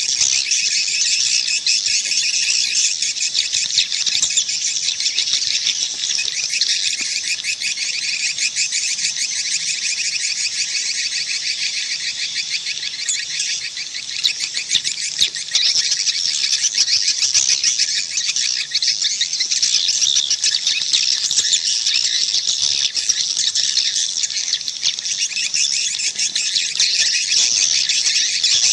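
Dense chorus of edible-nest swiftlets twittering in fast, high chirps without a break: a swiftlet call sound of the kind played to lure swiftlets into a nest house.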